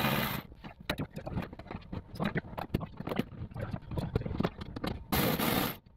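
Hands working loose interior plastic trim panels in a car: scattered small clicks and knocks, with two short scraping rushes, one at the start and one near the end.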